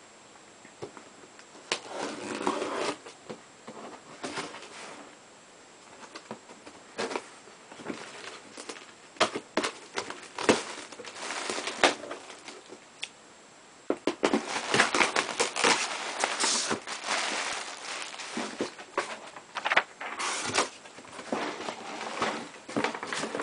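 Cardboard shipping box being opened and unpacked by hand: irregular rustling, crinkling and knocks of cardboard and packing material, busiest in the second half.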